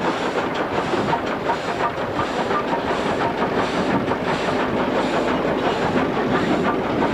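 Steam locomotive working past at close range: the rhythmic chuff of its exhaust with hissing steam from the open cylinder drain cocks.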